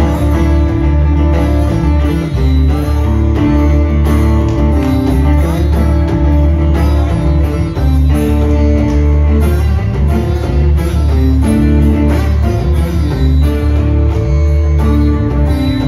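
Live band music: strummed acoustic guitars over a steady electric bass line, playing continuously.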